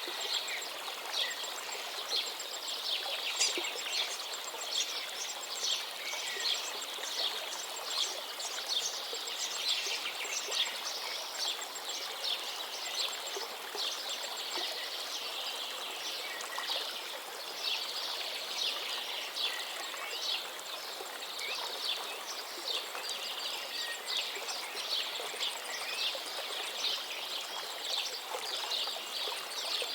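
Many small birds chirping in quick, overlapping calls over the steady rush of flowing stream water.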